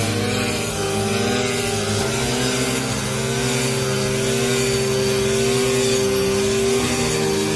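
Engine of a rice harvesting machine running steadily, with a slight regular rise and fall in its pitch.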